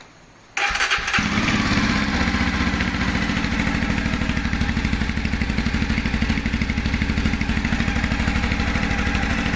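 Jawa 42's single-cylinder engine started on the button with a brief crank, catching about a second in and then idling steadily through an aftermarket SC Project exhaust, a loud, rapid, even exhaust beat.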